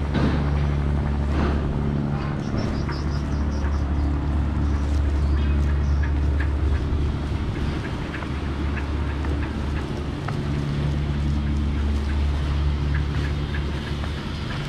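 A ship's diesel engine running with a steady, deep drone. A short run of high chirps sounds about two seconds in.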